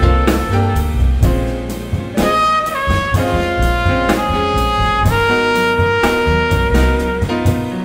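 A jazz quartet playing live: a trumpet carries the melody in long held notes over grand piano, double bass and drum kit.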